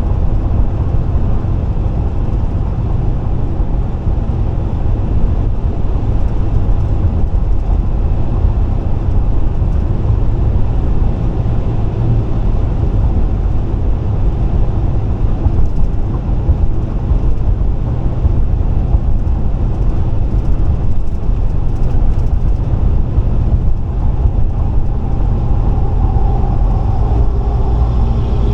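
Steady road noise inside a car cruising on the interstate: a constant low rumble of tyres and engine.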